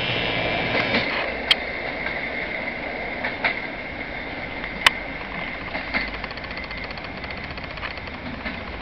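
Regional passenger train rolling away along the track, its steady running noise fading, with a thin steady high whine and a few sharp clicks of the wheels over the rail joints.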